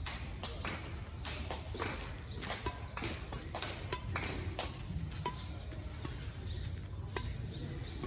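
Outdoor badminton rally: badminton rackets striking the shuttlecock with sharp pops, several of them leaving a short string ping, amid the scuffs and steps of players' shoes on the concrete court. A low steady rumble lies under it all.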